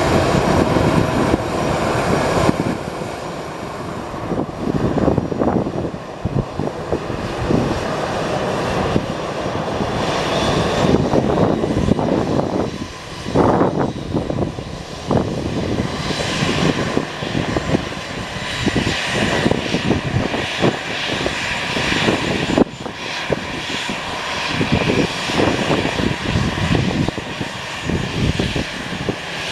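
Jet engines of an Airbus A320-214 (CFM56) running: a loud, uneven rush of noise that swells and dips, with a steady whine that comes through more clearly about halfway through.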